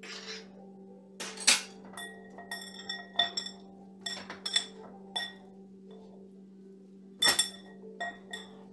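Glass mixing bowl clinking in a series of sharp knocks, some with a short ring, as a metal measuring spoon and hands work in it; the loudest knocks come about a second and a half in and again near the end. A steady low hum runs underneath.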